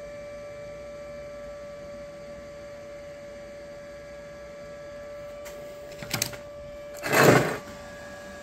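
Steady electrical hum with a thin, high whine. A few quick clicks come about six seconds in, then a louder, short burst of rustling noise about seven seconds in.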